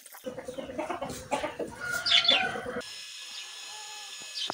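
Chickens clucking, with high chirping calls about two seconds in. It cuts off suddenly to a quieter steady outdoor background with a faint bird chirp near the end.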